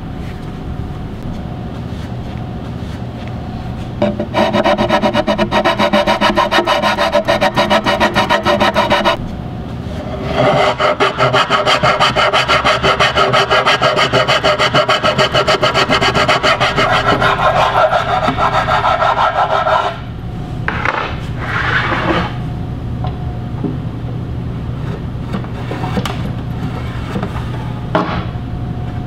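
Jigsaw cutting a wooden plank to widen a slot, the blade's rapid strokes running in two cuts of about five and ten seconds with a short break between. After the cuts, quieter knocks and handling of the wood.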